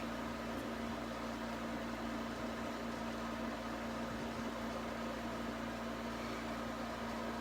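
Steady room noise: an even hiss with a constant low hum, unchanging throughout.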